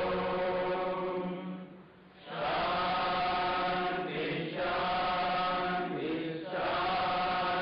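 Devotional mantra chanting: long, held sung phrases with brief pauses between them.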